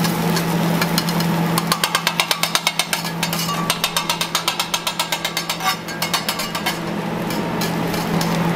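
Metal spatula rapidly chopping and scraping on a steel flat-top griddle, a quick run of sharp metal-on-metal strokes about seven a second that starts a couple of seconds in and stops about two seconds before the end. A steady low hum runs underneath.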